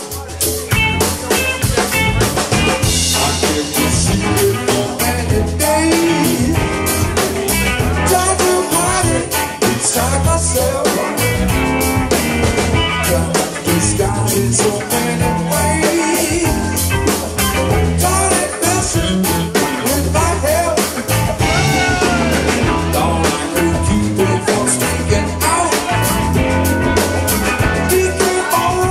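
Live rock band playing a song: electric guitars, bass and a drum kit keeping a steady beat.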